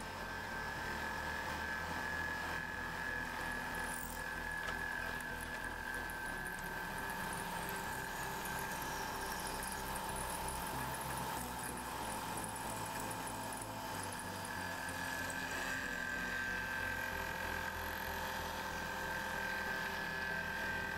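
Machine tool running while cutting brass: a steady motor and spindle whine over a bed of cutting noise.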